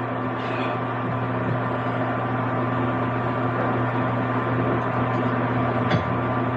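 Steady electrical hum with a fan-like whir from a running kitchen appliance, holding at one level throughout.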